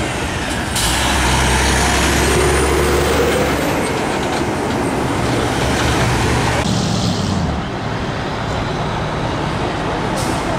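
Heavy truck engine running low as the truck drives slowly past, with a car going by. A few seconds before the end the sound changes abruptly to a steadier mix of truck engines running.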